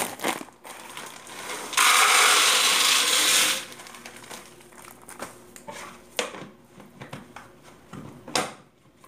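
Dry black beans poured from a plastic bag into a plastic storage canister: a dense rattling rush that starts and stops abruptly, lasting under two seconds. Then come scattered clicks and knocks of plastic canisters and lids being handled.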